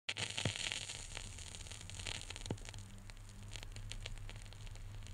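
Faint static hiss over a low steady hum, with scattered clicks and crackles.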